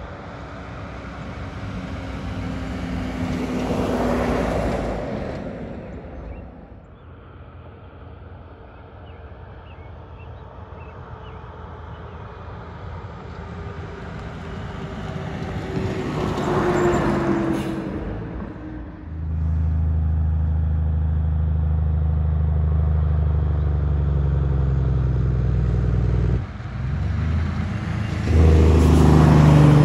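Loaded semi trucks passing on a highway one after another. Two pass-bys swell and fade, the second with a falling engine tone. Then a big-rig diesel engine runs with a loud, steady, low drone, dipping for a moment and loudest as the truck passes close near the end.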